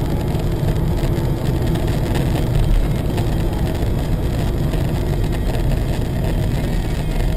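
Steady engine and tyre noise inside a moving car, picked up by its dashcam while driving on a snow-covered road. It is mostly low-pitched and even, with no impact.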